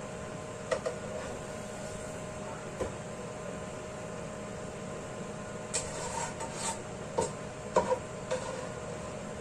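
A metal spatula clinks and scrapes against a non-stick wok and a plate several times while greens are stir-fried, the busiest scraping about six seconds in. Under it runs the steady hum of the kitchen range hood fan.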